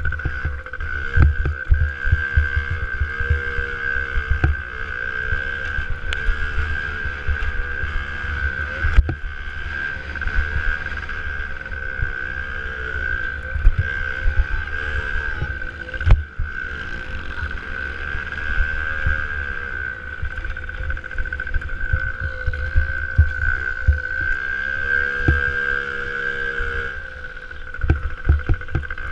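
A 65cc two-stroke motocross bike engine running hard over an onboard microphone, its pitch rising and falling as the throttle is worked through the corners, with a steady high whine underneath. Frequent low thumps come from wind and the bumps of the track.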